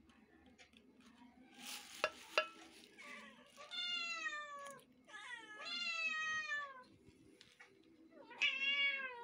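Domestic cats meowing: three long meows, each falling in pitch, the last cut off near the end. About two seconds in, before the first meow, a short rustle with two sharp knocks.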